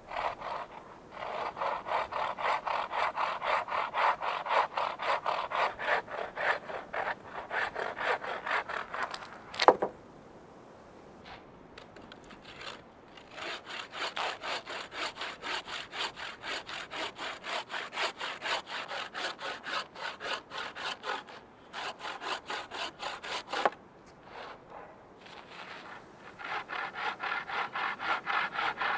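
Bow saw cutting through a log: quick, steady push-pull rasping strokes in three runs broken by short pauses. A single loud sharp crack ends the first run, and a lighter knock comes just before the last.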